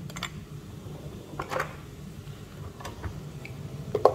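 Glass spice jars with metal lids being set down in a kitchen drawer: a few light knocks and clinks, a stronger one about a second and a half in and a quick cluster near the end, over a steady low hum.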